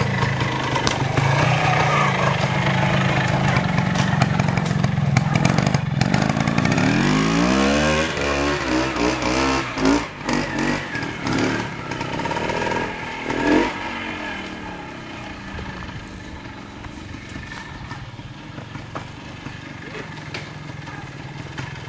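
Vintage trial motorcycle engine running at low revs, then revving up with a rising pitch about seven seconds in and blipped on the throttle a few times before settling back to a quieter run.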